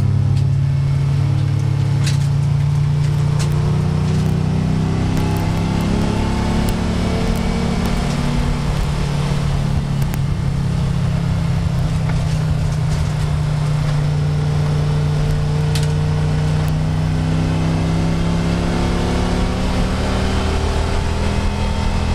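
Audi race car's engine running hard on track, heard from inside its stripped cabin over road and wind noise, its pitch rising and falling several times with throttle and gear changes. Occasional sharp clicks and rattles come from the bare cabin.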